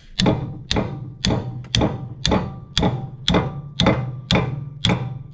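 Steady hammer blows, about two a second, on a steel drift held against a hydraulic cylinder's rod eye, each blow ringing briefly; the blows are knocking the threaded eye round to spin it off the cylinder rod of a Komatsu D41A bulldozer.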